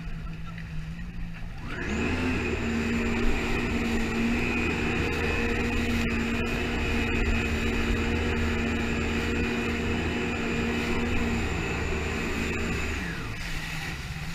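Jet ski engine throttling up about two seconds in to a steady high-pitched whine at speed, then easing off near the end.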